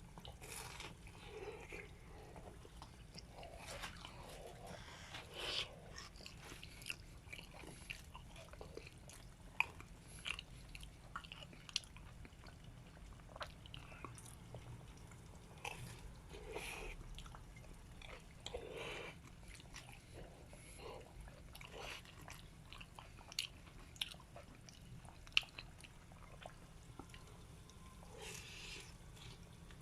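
Croquettes deep-frying in a tempura pot of oil, the oil crackling with scattered irregular pops over a faint steady hum.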